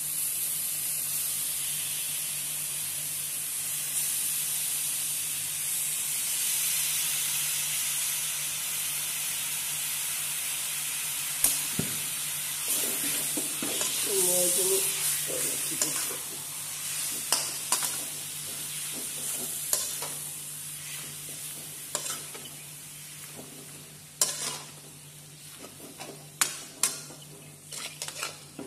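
Freshly washed raw beef sizzling as it hits hot masala in a metal kadai, a loud wet hiss that eases off in the second half. A steel spatula stirs and scrapes the pan, with sharp clicks and knocks that come more often toward the end.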